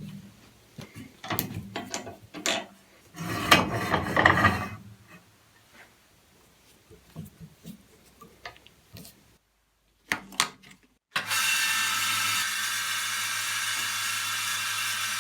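Woodworking sounds: scattered knocks and clicks of wood and tools being handled, with a stretch of rubbing about three to five seconds in. About eleven seconds in an electric power tool's motor starts and runs steadily with an even whir.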